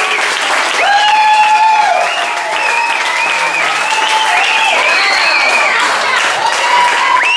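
Audience applauding, with high-pitched cheers and whoops over the clapping.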